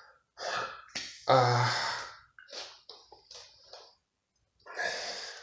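A man breathing audibly between sentences: several short breaths, and one sigh with some voice in it about a second and a half in.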